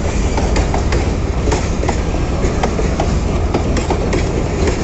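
Loaded freight train's boxcars rolling past close by: a loud, steady low noise of wheels on rail, with irregular clicks and clanks from the wheels over rail joints and the couplings.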